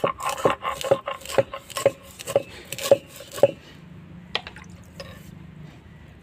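Stone roller of a sil-batta hand grinding stone worked back and forth over mustard seeds on the stone slab, knocking about twice a second for the first three and a half seconds, then rubbing more quietly.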